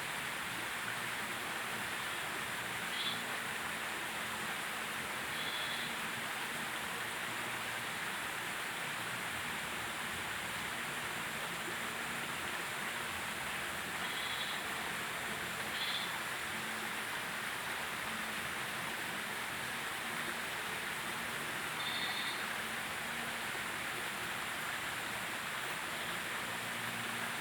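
Steady rushing outdoor background noise, like water running in a small creek, with a handful of short high bird chirps scattered through it. No howler monkey howling stands out clearly.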